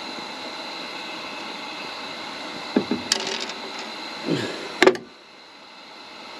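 A few short knocks and clicks about halfway through, the last the loudest, over a steady hiss that drops away suddenly just after.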